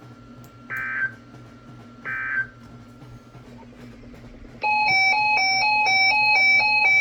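Emergency Alert System data bursts: two short, shrill buzzy chirps about a second and a half apart, the tail of the end-of-message code after a weather-radio warning. About four and a half seconds in, a loud electronic alert tone starts, switching back and forth between two pitches several times a second.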